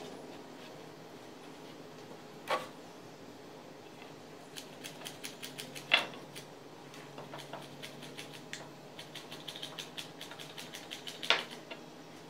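Handling noise from a hot glue gun being worked over wooden bench slats: three sharp knocks, the loudest about halfway, with runs of small rapid clicks in between. A faint low hum comes in about halfway.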